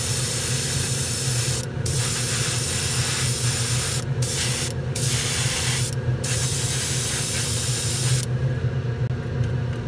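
Airbrush spraying paint in a run of trigger pulls: a loud steady hiss with brief breaks, which stops a little over a second before the end. A steady low hum runs underneath.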